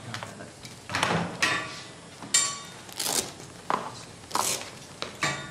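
A string of short clatters, clicks and rasps, about eight over five seconds, from a stretcher and equipment being handled around a patient.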